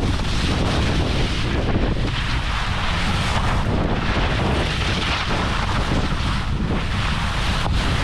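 Wind buffeting the microphone of a camera moving downhill with a skier, a steady rumbling roar, with the hiss of skis sliding on groomed snow swelling now and then.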